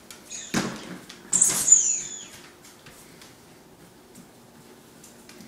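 A dog's squeaky chicken-leg toy squeaking as it is bitten: a short squeak about half a second in, then a louder, longer high squeak about a second later that slides down in pitch. Faint clicks follow.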